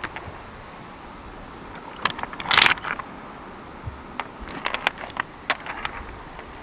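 Pieces of flint struck and scraped together by hand: a few sharp clicks, and one louder grating scrape about two and a half seconds in.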